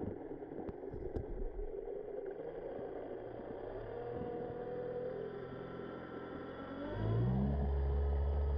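Boat engine and propeller heard underwater, pulling at full power against an anchor: a steady drone with slow pitch glides that rises and grows louder into a deep hum about seven seconds in.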